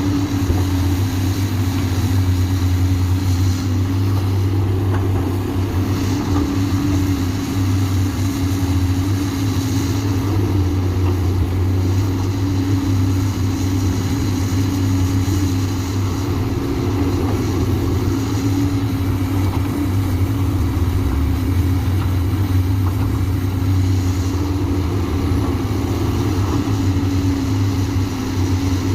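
Komatsu PC200 hydraulic excavator's diesel engine running steadily under working load.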